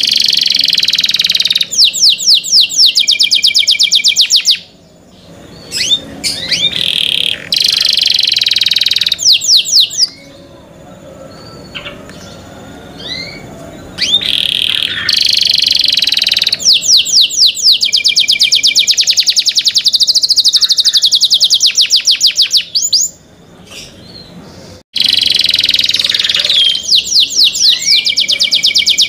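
Domestic canary singing loudly in long phrases of fast, high trills, repeated notes run together, broken by a few short pauses.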